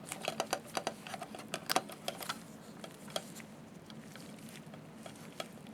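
Light clicks and scrapes of a cable being pushed and fed through the tubes of a slit-lamp chinrest, in a quick run over the first two seconds or so, then a few scattered ticks.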